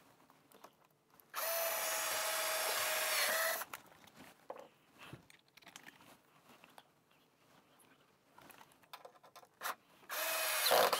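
Handheld power drill running at a steady speed for about two seconds, then starting again briefly near the end as it bores into a wooden shelf bracket.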